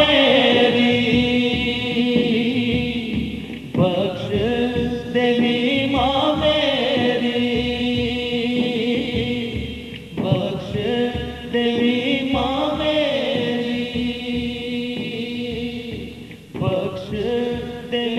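Devotional naat singing: voices chant a Punjabi refrain in long, held phrases that break off and start again every few seconds, over a steady drone.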